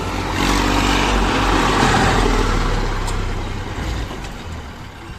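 Diesel engine of heavy machinery working hard. It is loud for the first few seconds, then eases off toward the end.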